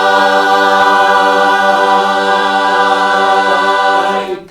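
A cappella chorus holding the final chord of a gospel song, a steady sustained chord that is cut off cleanly about four seconds in.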